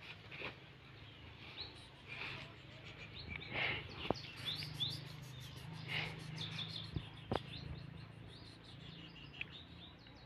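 Birds chirping in the background, with a quick run of short falling chirps through the middle, over a low steady hum. A few brief noisy bursts and two sharp clicks are mixed in.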